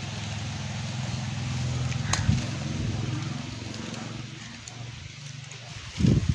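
A small lighter flicked once, with a sharp click about two seconds in, to light a heap of dry sugarcane leaves, over a steady low engine-like hum. Near the end, as the flame catches, loud irregular low buffeting starts.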